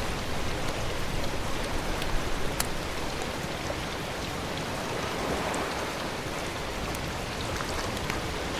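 Steady outdoor rushing noise with a few faint ticks.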